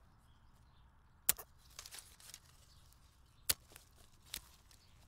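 Bypass secateurs snipping through old hellebore stems at ground level: a sharp snip a little over a second in, another about two seconds later and a third soon after, with small crackles of dry stems and leaf litter between the first two.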